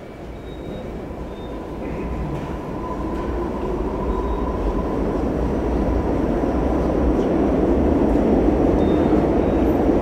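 Old resistor-controlled 2000-series Seoul subway train running along the platform, its wheel and motor rumble growing steadily louder, with a faint steady whine.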